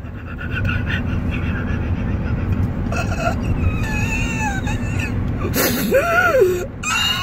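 A woman whimpering in pretend pain through clenched teeth: thin strained high whines, then a longer whimper that rises and falls about six seconds in, over the steady rumble of a car cabin.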